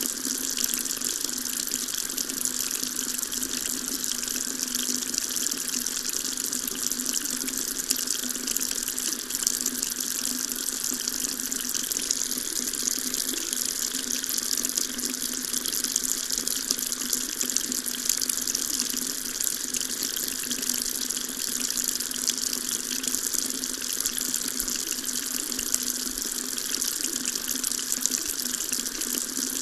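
Water tap running steadily, a continuous stream splashing into a sink.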